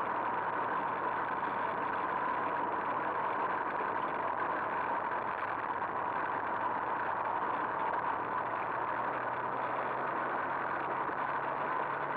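Two-stroke moped engine running steadily under way, picked up by a camera mounted on the moped and mixed with wind and gravel road noise.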